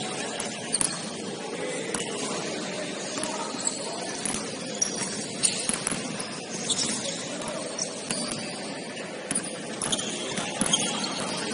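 Basketball court sounds: scattered sharp knocks of a ball bouncing and short high squeaks of sneakers on the floor, over the steady noise of the gym.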